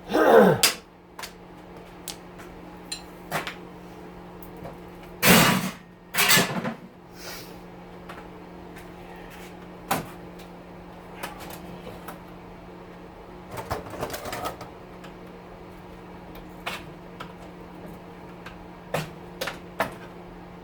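Scattered clicks, knocks and clatter of metal oven parts, screws and a screwdriver being handled during disassembly. A few louder handling noises come near the start, at about five and six seconds, and around fourteen seconds. A steady low hum runs underneath.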